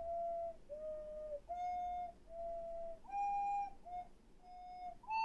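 Ocarina heard over an online lesson link, playing the exercise phrase 'do mi re fa mi so fa la' as a string of separate, pure notes of about half a second each, stepping up and down. The higher notes come through louder, which the teacher puts down partly to the internet connection or the microphone.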